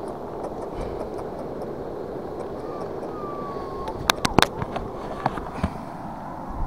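Steady rush of sea surf washing against the rocks, with a quick cluster of sharp taps about four seconds in and a couple more shortly after.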